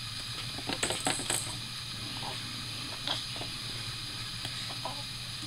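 Clear plastic rattle balls clicking and jingling on a plastic tray as a baby pushes them around: a quick cluster of clicks with a bright jingle about a second in, then a few scattered clicks.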